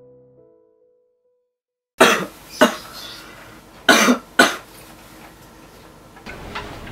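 A person coughing hard, four coughs in two pairs about two seconds apart, acted as the persistent cough that turns out to be tuberculosis. Soft piano music fades out before the coughing begins.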